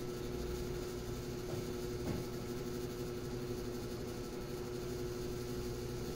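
Steady machine hum with a constant tone, and one faint tick about two seconds in.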